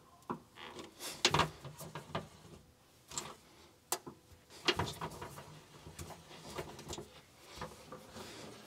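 Hand rivet-nut tool setting M6 rivet nuts in the trunk floor pan: a string of sharp clicks and clunks, the strongest about four seconds in, as the long handles are squeezed and the tool is worked back off the nut.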